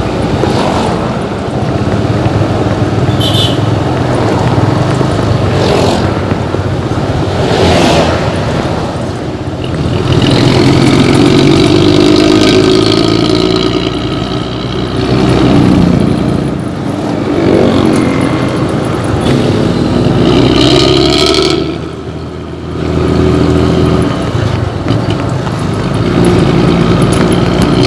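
Diesel intercity bus engine revved repeatedly through a loud 'ngorok' (snoring) exhaust, its pitch rising and falling in several swells, with a short lull about three quarters of the way through.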